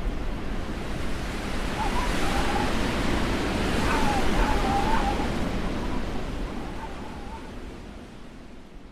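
Blizzard wind rushing steadily, with a faint wavering whistle-like howl coming and going in the middle, then fading out gradually over the last few seconds.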